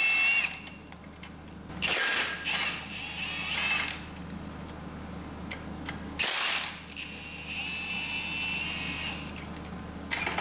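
Cordless impact wrench running in several short bursts, each with a high motor whine, as it loosens and spins out the power plant frame bolts at a Mazda Miata's transmission.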